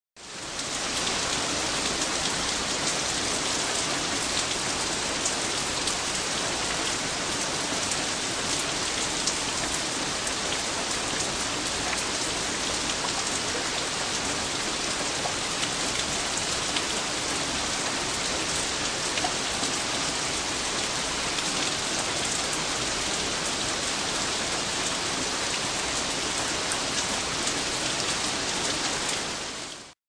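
Heavy rain falling steadily: a dense, even hiss of drops with fine scattered ticks. It fades in quickly at the start and fades out at the very end.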